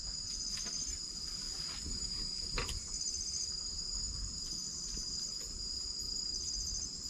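Night insect chorus, crickets or similar: a steady high-pitched shrill with short pulsed trills that repeat every couple of seconds. A single soft click comes about two and a half seconds in.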